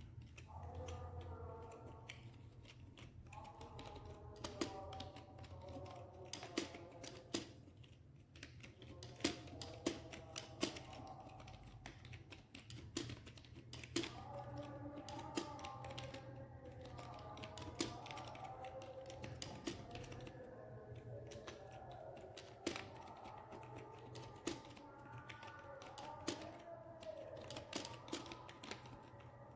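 Fast typing on a computer keyboard: a continuous, irregular patter of keystrokes with occasional louder key strikes.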